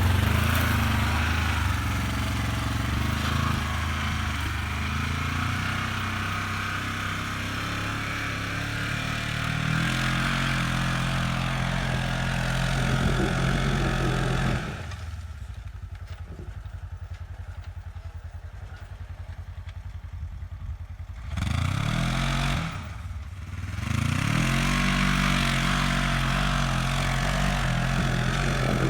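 2020 Polaris Ranger 1000 side-by-side's twin-cylinder engine driving under way with wind and terrain noise. About halfway through it drops to a quiet idle for several seconds. It then revs up twice, easing off briefly in between, and settles into a steady pull.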